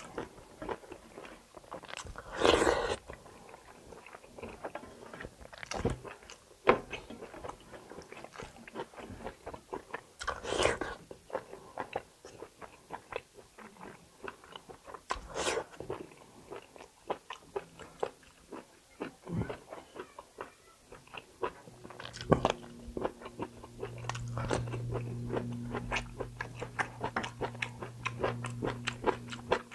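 Close-miked mukbang eating: steady chewing and mouth clicks on kalij pheasant meat and rice, with three louder crunching noises. The meat is tough and hard to chew. A low steady hum comes in about two-thirds of the way through.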